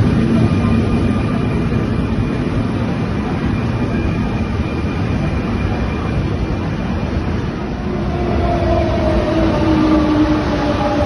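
A Fertagus double-deck electric train passing close by at speed: a loud, steady rush of wheel and air noise. About eight seconds in it gives way to a CP suburban electric multiple unit whose traction motors whine in several tones that slowly fall in pitch as it slows.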